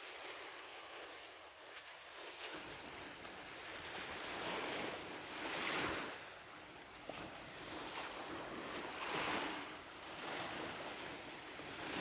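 Small waves of the Azov Sea washing onto a sandy shore: a soft hiss that swells and fades every few seconds.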